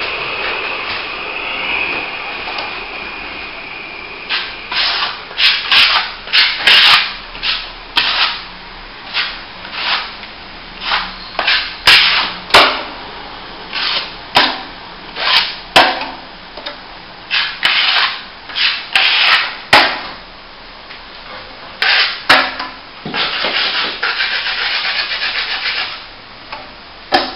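Plastering trowel scraping across wet top-coat plaster on a plasterboard repair. It starts with a longer scrape carrying a thin squeal, then makes many short repeated strokes, and ends with another long continuous scrape.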